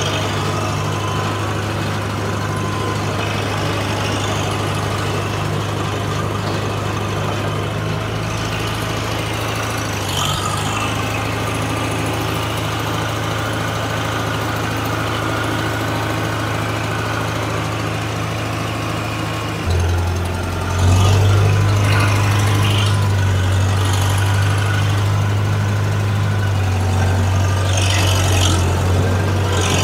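Caterpillar D4D crawler dozer's diesel engine running steadily at idle, getting louder and a little lower in pitch about twenty seconds in.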